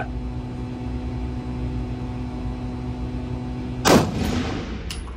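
A single shot from a Caracal CSA 338 semi-automatic rifle firing .338 Lapua Magnum, about four seconds in: a sharp report that rings on in the range room, over a steady low hum. A light click follows about a second after the shot.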